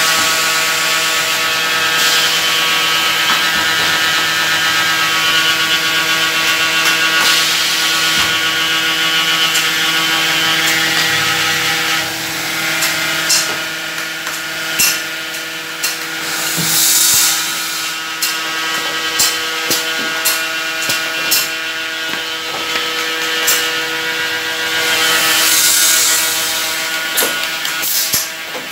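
Seamless uPVC profile welding machine running with a steady hum. A louder whir drops away about halfway through, after which the pneumatic clamps and valves give many sharp clicks and two hisses of released compressed air.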